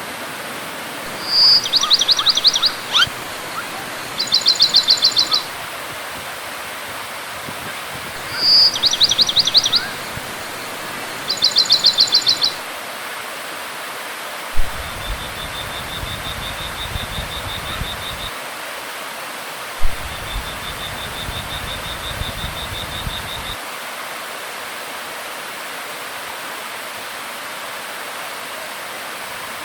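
Waterfall rushing steadily, with a bird singing a phrase of rapid, pulsed high notes twice in the first half, then two fainter, quicker trills a few seconds long.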